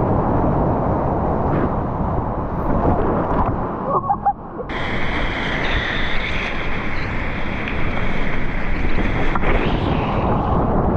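High-water river rapids rushing loudly, with wind buffeting the microphone. After a short lull about four and a half seconds in, the rush turns brighter and hissier.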